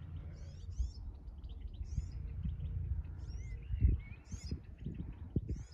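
Small songbirds chirping and trilling, call after call, over a steady low rumble, with a few dull low thumps in the second half.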